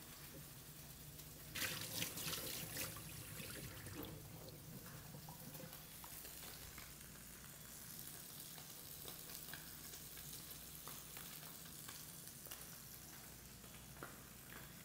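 Tilapia fillets sizzling faintly in oil in a frying pan, with small crackles. About two seconds in, a sink tap runs for a couple of seconds as hands are washed.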